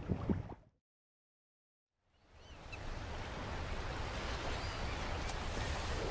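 Water lapping fades out into about a second of silence. Then a steady rush of wind and waves on open water fades in, with a few faint bird chirps.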